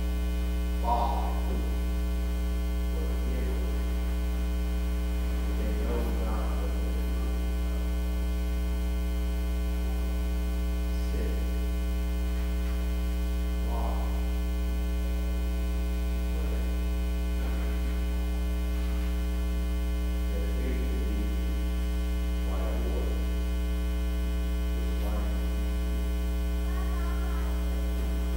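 Steady low electrical mains hum, with faint scattered sounds rising above it now and then.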